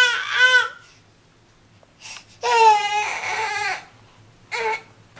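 Baby crying in separate wails: one that trails off just under a second in, a longer high-pitched wail from about two and a half to nearly four seconds in, and a short cry near the end.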